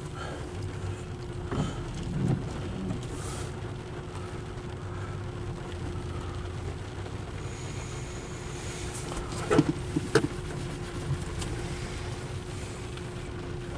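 Steady road and engine rumble inside a moving truck's cab, with a constant hum. A few sharp clicks come a little after halfway.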